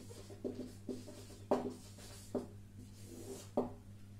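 Marker pen squeaking on a whiteboard in a string of about seven short strokes as words are written and underlined.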